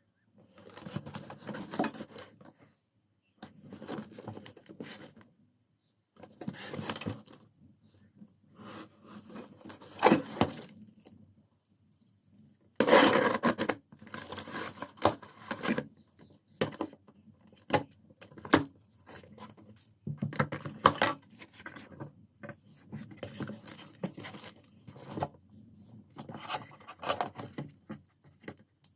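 Packaging being opened and handled: tearing and rustling of cardboard and plastic wrap in repeated bursts of a second or two each, with occasional sharper knocks.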